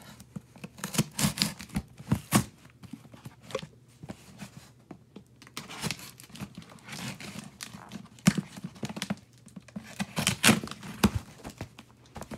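Cardboard shipping box being opened by hand: packing tape tearing and cardboard and packing material rustling and crinkling, with sharp knocks and clicks in irregular bursts.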